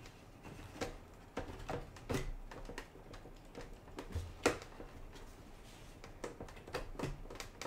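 Light plastic clicks and taps as the parts of a 1/48 Trumpeter Type VIIC U-boat model are handled and fitted together, with the clear hull section brought against the internal compartments. The clicks come irregularly, the sharpest about four and a half seconds in.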